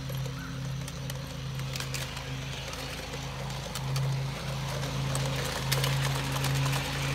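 American Flyer 4644 standard gauge toy train running on an outdoor track: a steady electric motor hum that swells and dips, with the wheels rattling and clicking over the rails. It gets louder about four seconds in and again near the end as the cars pass close.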